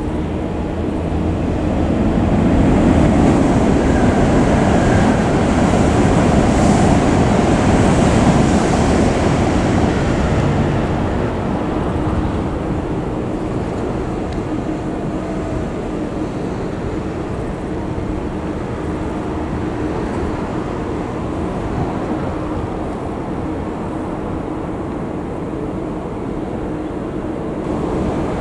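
A Hokuriku Shinkansen train passing: a rush of wheel and air noise that swells over the first few seconds and dies away about ten seconds in. It leaves a quieter, steady rumble with a faint hum.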